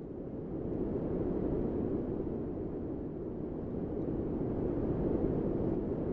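Low, steady rumbling noise with no beat or melody, swelling up over the first second.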